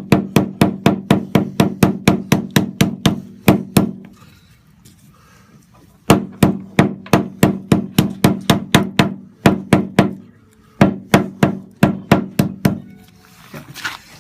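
Rapid, evenly spaced knocking strikes, about five a second, each with a short ringing tone. They come in three runs, break off twice for a second or two, and stop shortly before the end.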